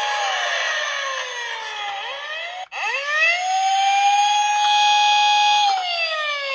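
Electronic police-car siren wailing. The tone holds high, glides down over about two seconds, then sweeps quickly back up and holds, starting to fall again near the end. A brief break interrupts it about two and a half seconds in.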